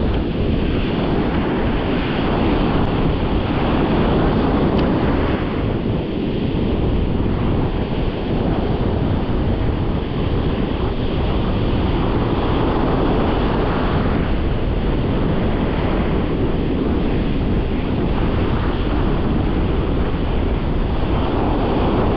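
Ocean surf breaking and washing up the beach, with wind buffeting the microphone: a loud, steady rushing noise.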